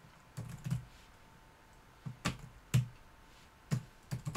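Computer keyboard being typed on: a handful of separate, unevenly spaced keystrokes.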